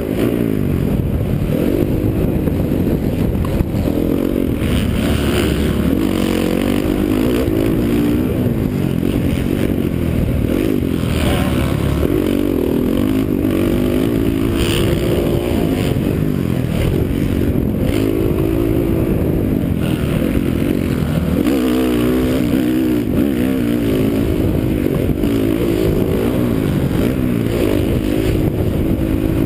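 Dirt bike engine revving under a rider, its pitch climbing and dropping again and again as the throttle is worked, heard close up from a helmet-mounted camera.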